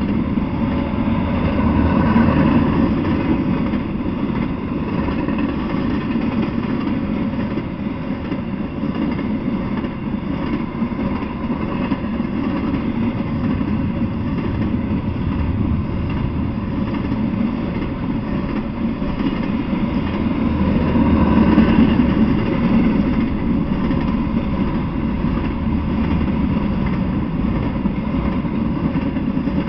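Intermodal freight train's container well cars rolling past, a steady rumble of steel wheels on the rails. It swells louder about two seconds in and again around twenty-one seconds in.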